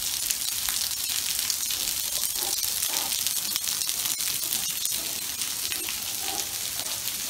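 Steady rain falling on stone paving: an even hiss peppered with the small patter of drops.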